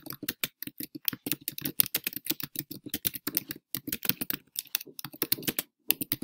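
Rapid typing on a computer keyboard: a quick, uneven run of key clicks, several a second, with a short pause near the end.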